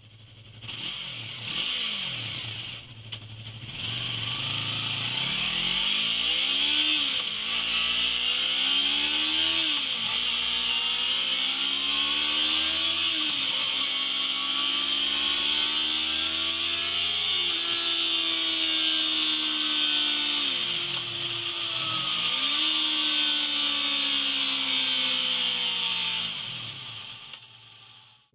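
A Yamaha YZF R3's parallel-twin engine, breathing through a MIVV GP full-system exhaust, revving up and down as the bike accelerates through the gears. The engine pitch climbs, then dips sharply at each shift, over a steady hiss.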